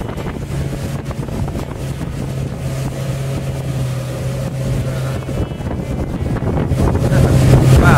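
A 175-horsepower outboard motor running steadily at towing speed, with wind buffeting the microphone over it; the sound gets louder near the end.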